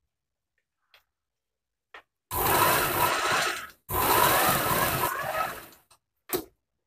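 Merritt sewing machine driven by an add-on electric motor, stitching a side seam through layered denim. It starts about two seconds in, runs in two bursts of about one and a half and two seconds with a brief pause between, then gives one short burst near the end.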